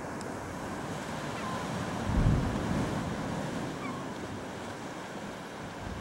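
Steady sea surf and wind noise on the microphone, with a louder low surge of wind or wave about two seconds in.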